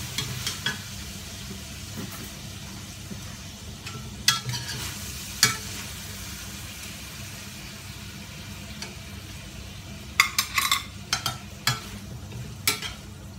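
Bitter gourd and duck sizzling in a stainless steel wok over a gas flame while a metal spatula stirs and scrapes through it. Sharp clinks of metal on the wok come twice around the middle and in a quick run near the end.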